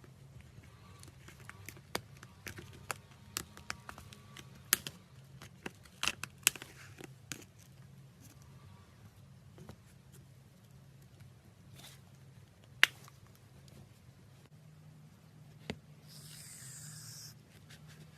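Slime being squeezed and poked, giving scattered sharp clicks and pops that are densest in the first seven seconds, with one loud pop near the middle. A short high hiss comes near the end, over a low steady hum.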